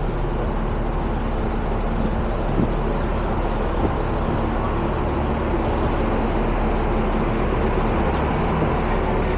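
Steady city road traffic: the continuous noise and low engine hum of passing vehicles.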